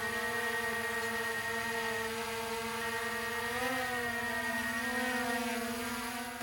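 Small quadcopter drone's propellers whirring in flight, a steady buzzing hum that rises slightly in pitch about halfway through, then settles.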